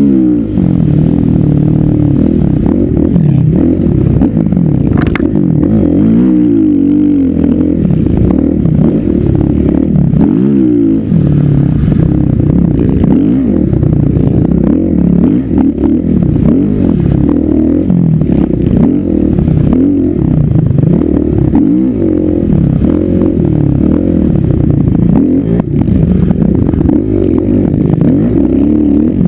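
Dirt bike engine ridden hard, its revs rising and falling continuously every second or two, heard close from a camera mounted on the bike. There is a single sharp click about five seconds in.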